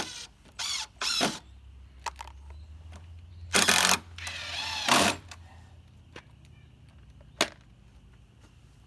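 Cordless impact driver running in short bursts, four times, hammering long TimberLok structural wood screws into rafter timbers, with a sharp click near the end.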